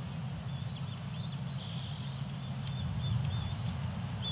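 White-breasted nuthatch calling: short, high, nasal notes repeated several times a second, over a steady low rumble.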